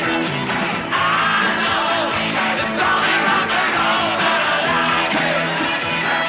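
A 1960s rock song: a lead singer over a full band of drums and guitars.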